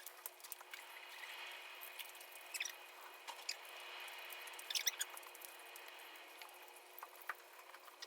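Faint close-up eating sounds: small wet clicks and crisp crackles of chewing breadcrumb-coated chicken drumsticks, with a couple of louder crunchy clusters about two and a half and five seconds in.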